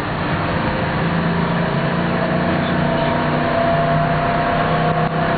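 A tram running steadily along its track, heard from inside the car. There is a continuous rumble with a faint, steady motor whine.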